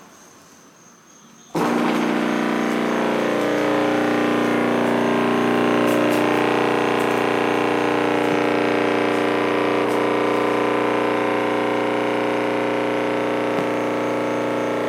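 A 15-inch subwoofer wired directly to mains power from a wall socket, switched on about a second and a half in: a sudden, loud, steady buzz with many overtones as the woofer is overdriven by the mains current.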